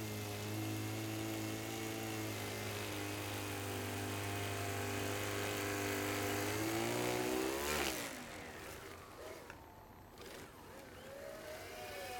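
Single-stage R/C snow blower's impeller motor running at a steady pitch while throwing snow, then winding down with a falling pitch and stopping about eight seconds in. After that only a fainter, wavering whine from the tracked R/C vehicle is left.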